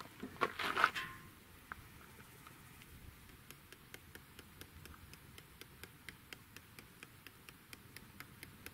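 Lid of a portable grill lifted off with a short clatter in the first second, then seasoning shaken from a shaker over a steak, a long, even run of light ticks about four a second.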